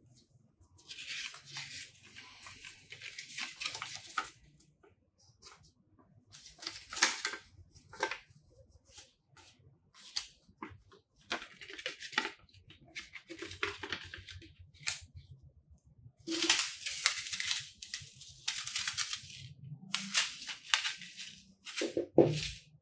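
Paper rustling and crinkling in repeated short bursts as a folded paper user manual is unfolded and its pages handled, with a few light clicks and a soft knock of things set down near the end.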